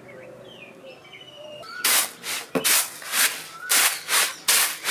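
Birds chirping faintly. From about two seconds in, rice grains are tossed on a woven bamboo winnowing tray, making a rhythmic rattling swish two to three times a second.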